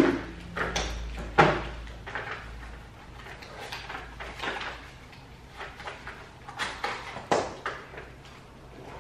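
Handling noises from unpacking a vacuum cleaner: knocks and clicks of its plastic parts and rustling of the cardboard box. There is a sharp knock about a second and a half in and another a little after seven seconds.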